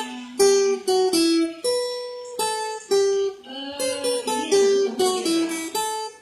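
Acoustic guitar picking a melody in single notes, each plucked sharply and ringing briefly before the next, as an instrumental song intro.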